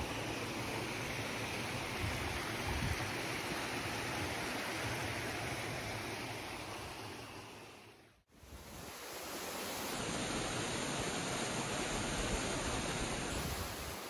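Steady rush of the waterfall at Gordale Scar, water pouring down over rock. It fades out briefly about eight seconds in and comes back.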